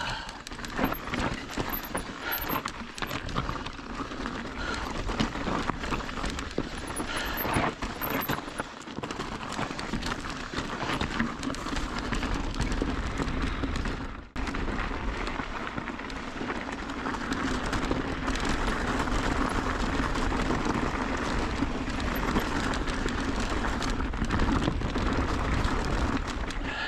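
Mountain bike riding over a rocky dirt trail: a steady crunch and rattle of tyres and bike over dirt and stones, with a few sharp knocks in the first part and a brief lull about halfway through.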